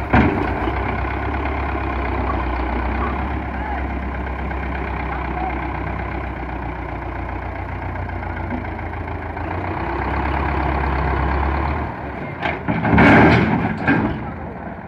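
Belarus 510 tractor's diesel engine running steadily as the loader tractor manoeuvres. Near the end the engine hum drops away, and a short loud burst of noise follows.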